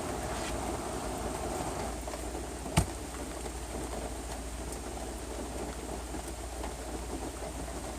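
Rain falling steadily, with a low steady rumble underneath and one sharp knock about three seconds in.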